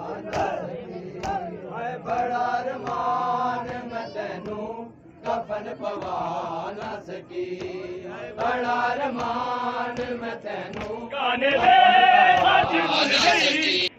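A crowd of men chanting a noha, a Muharram lament, in unison, with hands slapping on chests (matam) in time, the slaps heard most in the first couple of seconds. The chanting drops out briefly about five seconds in and comes back louder near the end.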